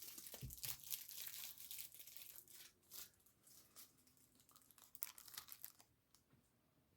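Plastic snack-cake wrapper crinkling and being torn open, a faint, crackly rustle that dies away about six seconds in.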